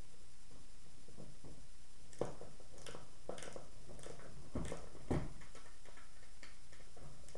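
Irregular small clicks and taps of a skate tool on the mounting hardware as skateboard trucks are bolted to the deck, over a steady hiss.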